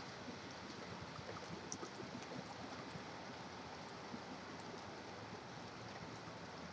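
Steady hiss of rain mixed with the wash of distant highway traffic, with a few faint ticks of drips.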